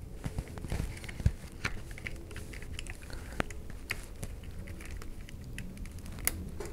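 Small irregular plastic clicks and rustling of HID headlight wiring plugs being handled by hand and pushed together.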